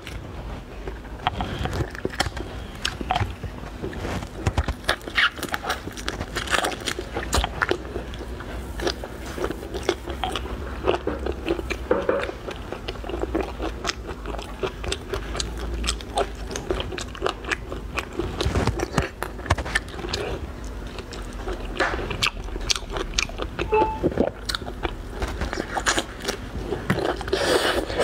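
Shell of a large raw, soy-marinated prawn crackling and cracking in short, sharp clicks as it is peeled apart by hand, with chewing of the prawn meat.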